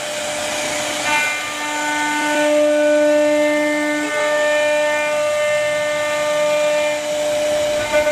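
CNC router spindle whining at a steady high speed as its bit carves into wood, with a hiss of cutting underneath; the whine's overtones swell and fade as the load on the bit changes.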